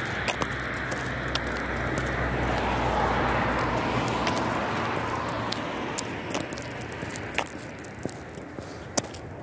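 A vehicle passes on the road: its engine and tyre noise swells to a peak about three seconds in and dies away by about six seconds. Footsteps tick on the road surface, clearer near the end.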